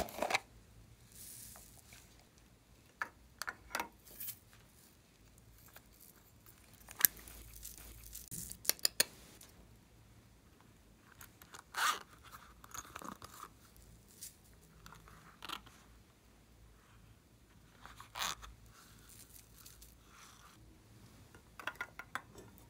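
Plastic toy-shaped containers and a zippered pouch handled at close range: scattered sharp clicks and taps with short crackly rustles as lids come apart and foam beads and glitter are tipped into a glass tray. The loudest is a quick run of clicks a little past halfway through the first half.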